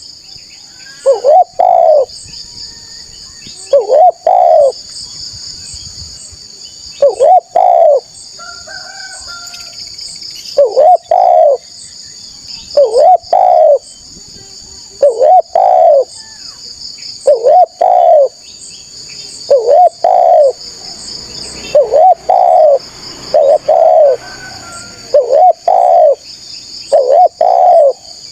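Spotted dove (tekukur) cooing its repeated coo-coo-croo phrase, about a dozen times at roughly two-second intervals, over a steady high shrill of insects.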